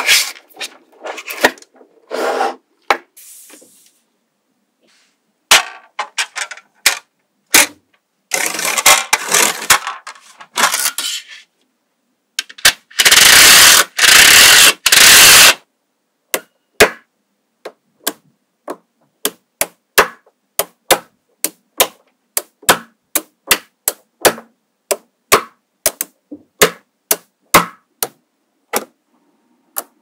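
Small neodymium magnetic balls clicking as they snap together and onto a built structure, in sharp single clicks, mostly about two a second through the second half. There is a quick run of clicks about eight seconds in and a loud burst of dense noise lasting about two seconds near the middle.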